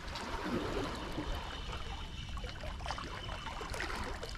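Sea water splashing and trickling among the rocks of a jetty, with scattered small clicks and taps.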